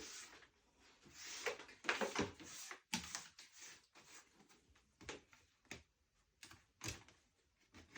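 Faint, scattered clicks, taps and brief rustles of hands handling a wooden rocking chair and its woven splint seat.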